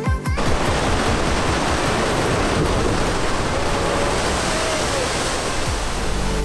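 Heavy sea waves crashing and splashing against limestone cliffs, a steady rush of churning white water and spray. An electronic music beat cuts off just after the start.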